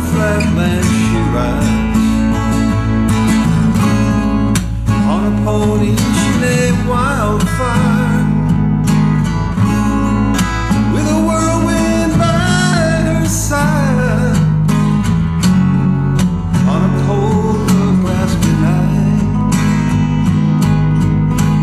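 Band music led by strummed acoustic guitar over a steady bass line, with a melody line gliding up and down above it.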